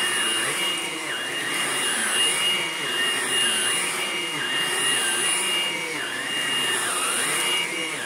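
Hoover Blade+ stick vacuum running as it is pushed back and forth over carpet. There is a steady high whine, with a lower tone that rises and falls every second or so.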